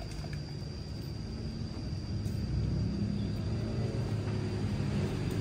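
Low, steady rumble like a vehicle engine running, slowly growing louder, with a faint steady high-pitched tone above it.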